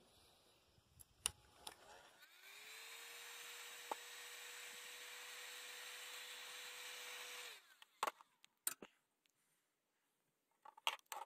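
Milwaukee electric heat gun switched on. Its fan spins up with a short rising whine, then runs with a steady whir for about five seconds before cutting off suddenly. A few sharp handling clicks come before and after.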